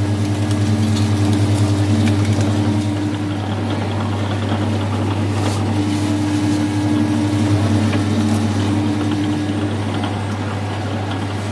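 Electric sugarcane juice press running with a steady motor hum while its steel rollers crush sugarcane stalks fed through them.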